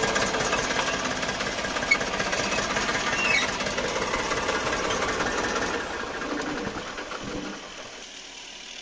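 Tractor diesel engine running with a steady, dense clatter under load. It eases down and is much quieter in the last couple of seconds, as if throttled back to idle.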